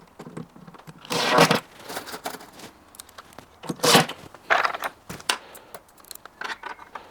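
Intermittent scraping and rustling as the unit's parts and screws are handled during assembly. There is a longer burst about a second in and shorter ones around four and five seconds, with small clicks between them.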